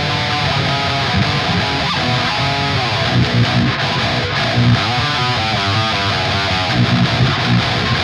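Eight-string electric guitar with Invander humbucker pickups, played through distortion: a dense, continuous run of riffs with strong low notes.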